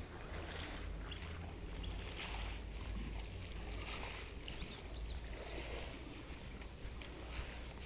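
Wind buffeting the phone's microphone, a steady low rumble over outdoor ambience, with a few short high bird chirps about halfway through.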